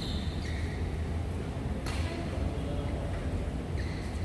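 Badminton rally: a racket strikes the shuttlecock once, about two seconds in, with short shoe squeaks on the court floor near the start and near the end, over a steady low hum.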